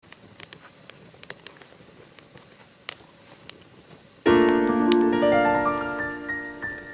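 Faint crackling and popping of a campfire, then piano music starts suddenly about four seconds in and becomes the loudest sound.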